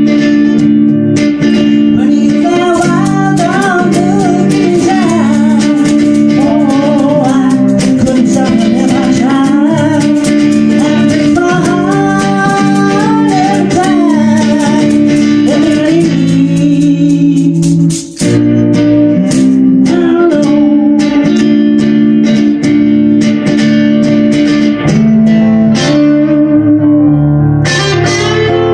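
Live band music: a woman singing over an electric guitar, with a hand shaker rattling in time. About eighteen seconds in, the singing and shaker stop with a brief drop, and the guitar carries on, joined by keyboard near the end.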